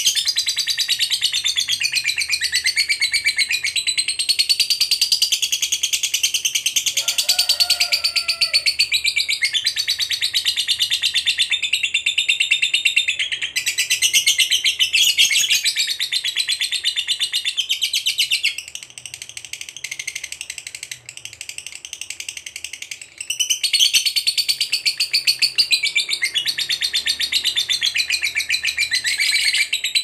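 Lovebird giving its long, rapid, high-pitched chattering song ('ngekek panjang'). The chatter goes on almost without a break, eases off for a few seconds past the middle, then picks up again at full strength.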